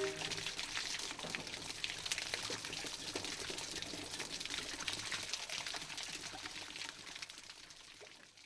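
Water of a waterfall splashing and spattering, a steady hiss full of small drips and splashes, fading out near the end.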